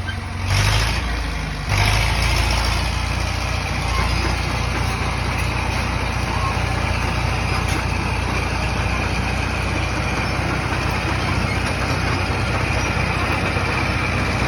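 Cat D4E crawler dozer's diesel engine running, with a brief surge about half a second in and a step up in level about two seconds in, then holding steady.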